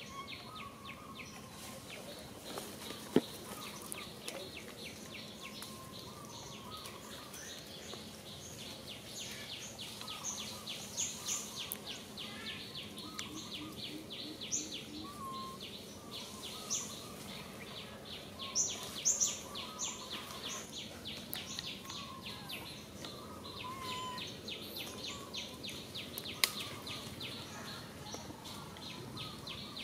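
Tropical forest ambience: a fast, steady pulsing insect chorus with scattered bird chirps over it, broken twice by a sharp click, once about three seconds in and once near the end.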